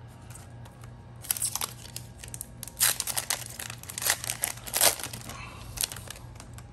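Foil Yu-Gi-Oh booster pack wrapper crinkling and tearing as it is opened by hand, in a run of sharp crackles starting about a second in, the loudest bursts near the middle.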